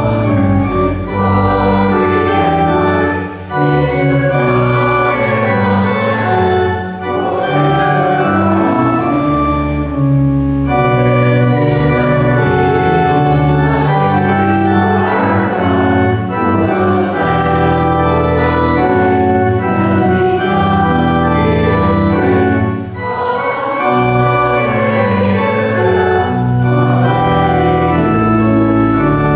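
Church organ playing in full sustained chords that change step by step, with brief dips between phrases.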